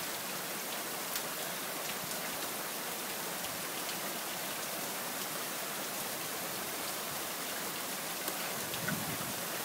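Heavy rain falling steadily: an even hiss with a few faint taps of drops. Wind begins buffeting the microphone near the end.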